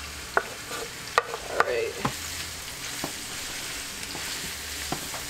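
Shredded pressure-cooked flank steak sizzling in hot oil as it is scraped into a frying pan of onions, peppers and garlic and stirred in. A steady frying hiss runs throughout, with several sharp knocks of the wooden spoon and board against the pan.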